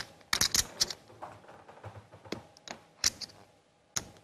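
Poker chips clicking as they are handled at the table: a quick cluster of sharp clicks in the first second, then a few single clicks spaced out.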